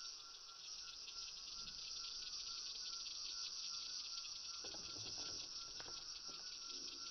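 Steady chorus of insects, a dense, rapidly pulsing high trill, with a faint rustle partway through.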